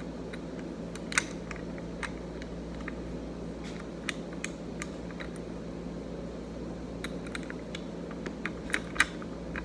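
Small, sharp metal clicks and taps, scattered and irregular, as the charging handle is fitted back into the breech bolt of a Remington 11-48 shotgun, over steady background noise.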